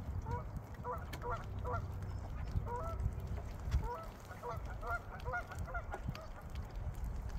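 Geese honking in a rapid series of short calls, with a low rumble underneath.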